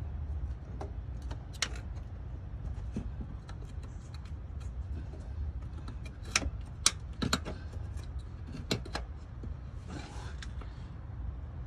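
Scattered metal clicks and knocks of pliers gripping and working a crankshaft position sensor loose from the engine block, loudest in a cluster about two-thirds of the way through, over a steady low rumble.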